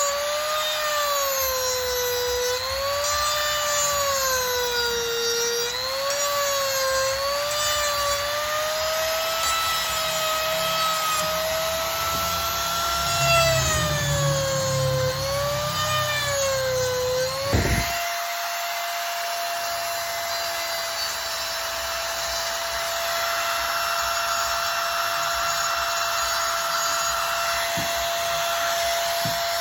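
Electric power tool carving wood: its motor whine dips and wavers under load for most of the first 17 seconds, then abruptly settles to a steady, slightly higher pitch as it runs free.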